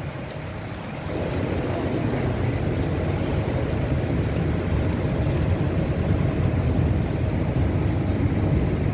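Steady low rumble of a boat under way, mixed with wind noise on the microphone, getting louder about a second in.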